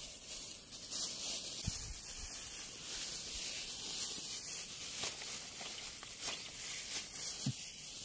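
Steady outdoor ambience in a grassy field: a high, even hiss with a thin high steady whine, a little rustling and a few soft clicks.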